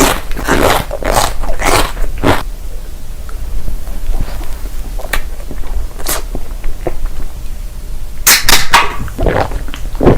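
Close-up eating sounds: crunchy food being bitten and chewed, in bursts of crisp crunches over the first two seconds and again near the end, with softer chewing between them.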